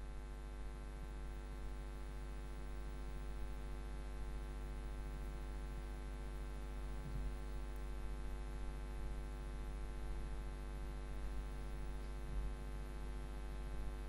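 Steady electrical mains hum, a buzz with many evenly spaced overtones over faint hiss, with a couple of soft low bumps.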